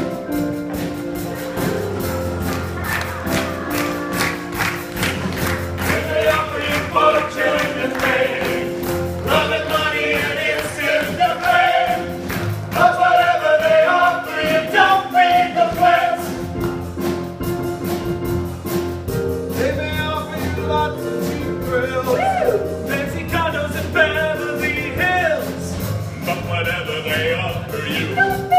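Stage-musical finale: the cast singing together, men's and women's voices, over band accompaniment with a steady beat.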